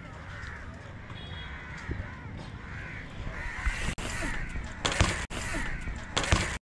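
Crows cawing repeatedly in the background, with a few sharp thumps and rattles in the second half.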